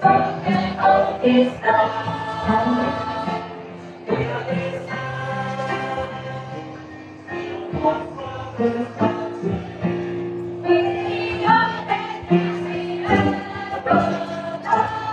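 Youth choir singing a song in harmony, holding long notes over a low instrumental accompaniment.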